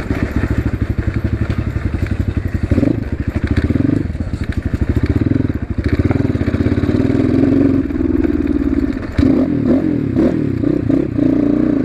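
Asian Beast 250 dirt bike's loud exhaust as it is ridden at low speed, the engine running with distinct pulsing beats. Near the end the revs rise and fall a few times.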